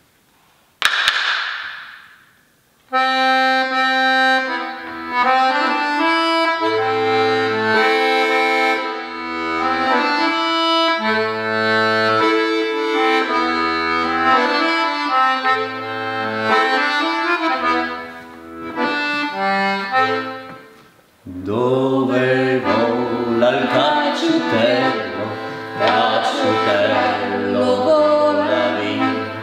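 A button accordion playing a tune, a melody over alternating bass notes, after a sharp knock and a brief hiss about a second in. A little past two-thirds of the way through, the playing turns fuller and busier.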